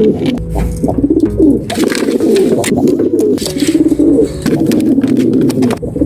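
Domestic pigeons cooing continuously at close range, calls overlapping, with frequent short scratchy noises in between.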